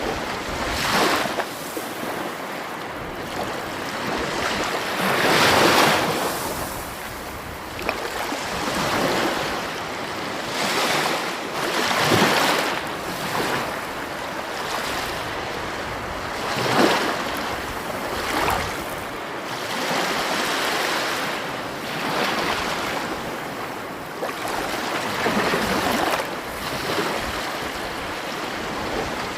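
Sea waves breaking on the shore, a steady rush of surf that swells into a louder wash every few seconds.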